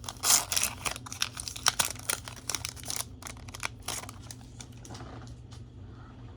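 Foil Pokémon booster pack wrapper being torn open and crinkled in the hands: a dense run of crackling for about three seconds that thins out to a few scattered crinkles.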